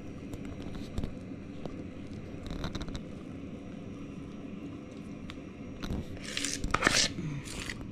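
A spoon scraping thick whipped cream-cheese frosting out of a plastic bowl and spreading it over a sponge cake in a metal tin: soft squishy scrapes and light clicks, with a few sharper scrapes near the end.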